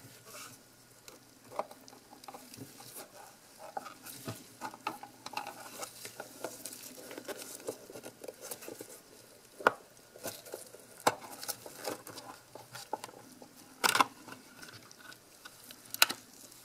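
Plastic case halves of a Fluke 83 multimeter being worked apart by gloved hands: scattered small clicks and rubbing, with a few sharper clicks, the loudest about ten, eleven, fourteen and sixteen seconds in.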